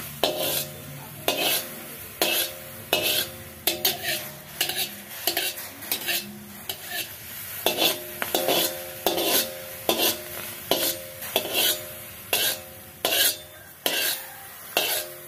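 A spatula scraping round and round inside a hot aluminium wok, repeated strokes about one or two a second, the pan ringing with each stroke. Faint sizzling underneath as the last of a little water boils off the hot metal.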